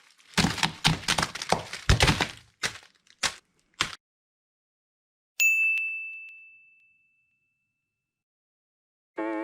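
A quick, irregular run of sharp clicks and cracks lasting about three and a half seconds. After a short pause comes a single bright, bell-like ding that rings out and fades over about a second. Music starts just before the end.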